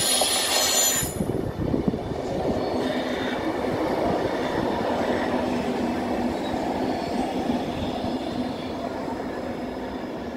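Electric multiple unit passing on the rails and drawing away, a steady rumble of wheels on track that slowly fades. A high squeal at the start stops about a second in.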